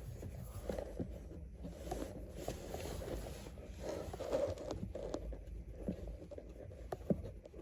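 Faint handling noise: soft rustling with scattered light clicks and knocks.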